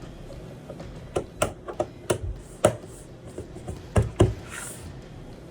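Hands handling small hardware parts: a string of sharp, irregular clicks and taps, about nine in all, most of them between one and four and a half seconds in.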